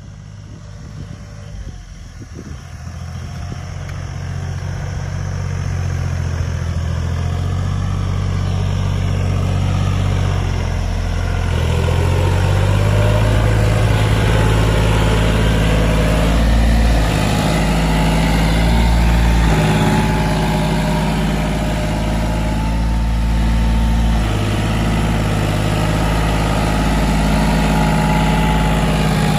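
John Deere utility tractor's diesel engine running steadily while pulling a cultivator through wet, muddy soil. It grows louder over the first ten seconds or so as the tractor comes closer, then holds, with a few small shifts in engine speed.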